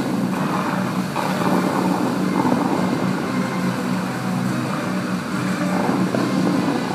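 The Dubai Fountain's lit water jets spraying high and falling back into the lake: a steady rushing noise.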